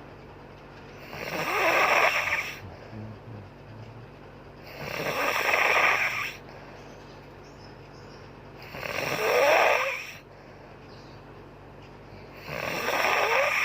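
A woman snoring in a steady rhythm: four long snores about one every four seconds, each rising in pitch as it goes.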